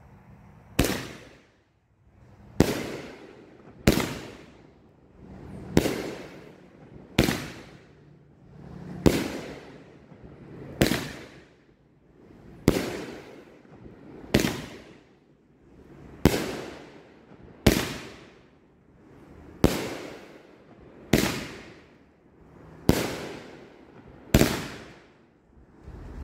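Mad Ox 'Shock Treatment' firework cake firing shot after shot: about fifteen sharp aerial bursts at a steady pace of one every one and a half to two seconds, each bang dying away over about a second.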